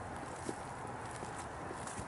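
A person's footsteps on the forest floor, a few soft steps.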